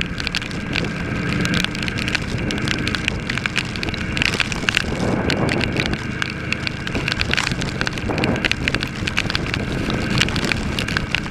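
Kawasaki ER-6's parallel-twin engine running at a steady speed, under wind noise on the microphone, with many sharp ticks of rain striking throughout.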